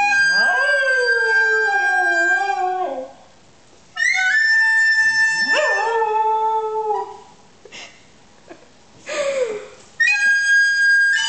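A dog howling along to a recorder. The recorder plays three long held notes, and under the first two the dog's howl rises and wavers; a shorter falling howl comes between the second and third notes.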